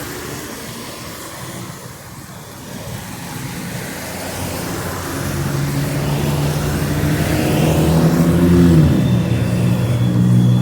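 A motor vehicle's engine approaching and growing louder, its engine note dropping in pitch about nine seconds in, then running on steadily.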